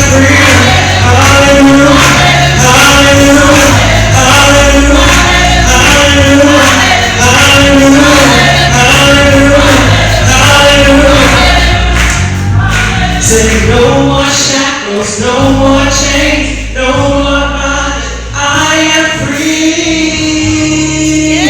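Gospel choir singing a repeated phrase over instrumental accompaniment; the music thins out and breaks up in the last few seconds.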